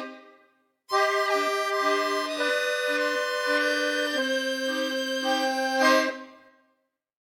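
Accordion music: the tune breaks off for a moment, resumes, and ends on a held final chord that fades out to silence.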